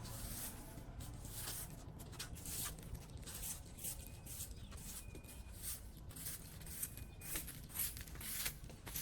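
Debris being scraped and pulled out of a clogged drain: irregular scratchy, rustling strokes over a steady low rumble, with a couple of brief bird chirps.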